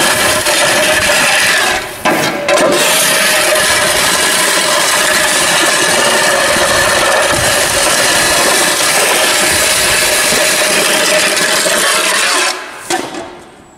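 Metal shovel blade scraping along a concrete floor as it pushes loose maize silage. It is one long continuous scrape, broken briefly about two seconds in, and stops shortly before the end.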